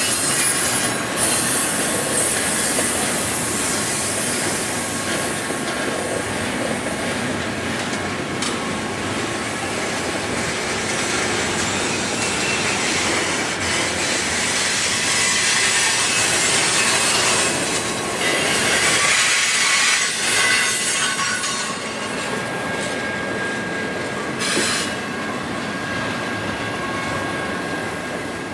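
Double-stack intermodal train's container well cars rolling past, a steady rumble of steel wheels on rail with thin, faint wheel squeal running through it.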